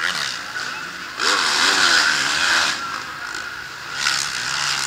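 Motorcycle engines at a motocross track: a dirt bike revs hard, with a wavering pitch, for about a second and a half starting a little over a second in, then falls back to a quieter engine drone.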